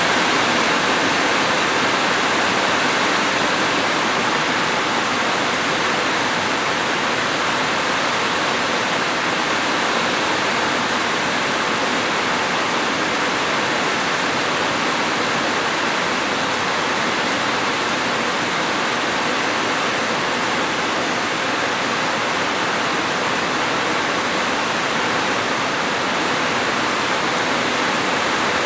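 Rain falling, a steady, even rush of noise that does not change.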